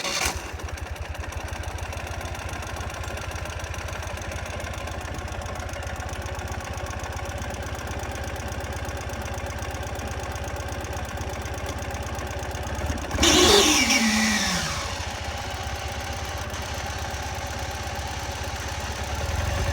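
Ural Patrol's air-cooled boxer twin engine idling just after starting, blipped once about 13 seconds in, its pitch falling back to idle over a couple of seconds.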